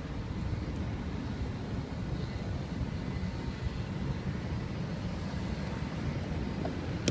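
Steady low rumble of a bicycle ride over paving stones: wind buffeting the handlebar-mounted microphone, mixed with the tyres rolling on the pavers.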